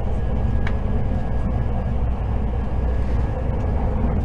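Cabin running noise of a Hakutaka limited express electric train at speed: a steady low rumble of wheels on rail. A faint high whine runs through the first couple of seconds, and a single click comes just under a second in.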